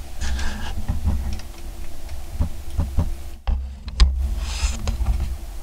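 Low rumbling and thumping of wind buffeting the camera microphone, with scattered small clicks and knocks of the camera being handled in a hunting blind; the loudest thump comes about four seconds in.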